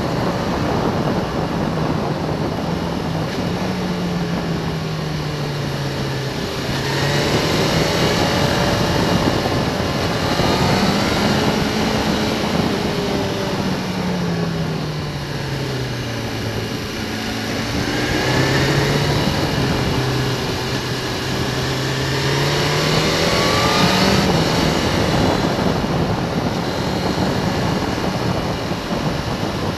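Motorcycle engine heard from the riding bike, its pitch falling and rising several times as the rider eases off and accelerates through the bends. Steady wind rush over the microphone runs under it.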